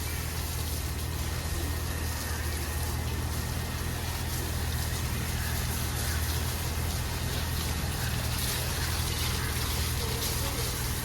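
Water spraying steadily from a hose pipe onto a motorcycle, an even hiss, over a steady low hum.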